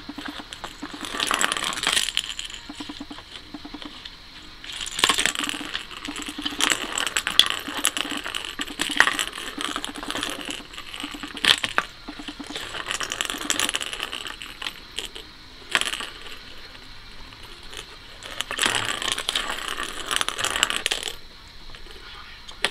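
Small plastic ball rolling and rattling around the enclosed plastic track of a Crazy Circle cat toy as the cat paws it, in several spells with sharp clicks as the ball is struck.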